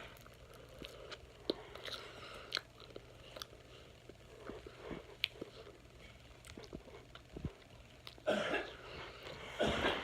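Wet mouth noises of someone chewing a mouthful of marshmallows: scattered soft clicks and smacks, then two louder muffled bursts near the end.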